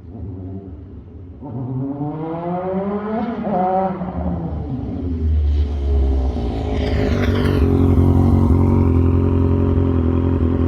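An engine revving: its pitch climbs a couple of seconds in, then it runs steadily and louder. A high whine falls in pitch about seven seconds in.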